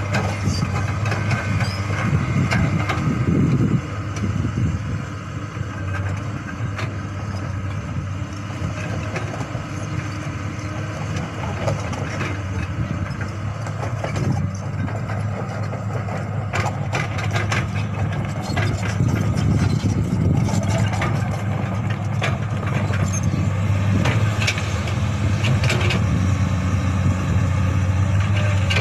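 Komatsu hydraulic crawler excavator's diesel engine running steadily with a deep hum, with scattered metallic clanks and knocks from the working machine, most of them in the second half.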